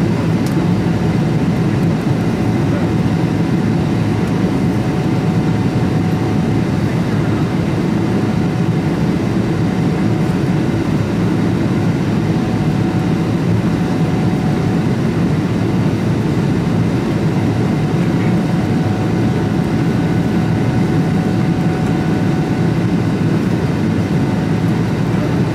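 Steady cabin roar of a Boeing 777-300ER climbing after takeoff, heard from inside the cabin: its GE90-115B engines at climb power and rushing airflow, with a faint steady whine.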